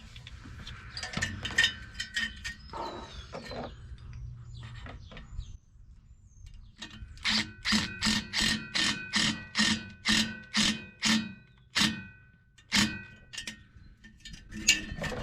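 A hammer striking a steel exhaust pipe, with some scattered clanks, then a steady run of blows about three a second from about seven seconds in. Each blow rings at the same metallic pitches, and a few more blows land near the end.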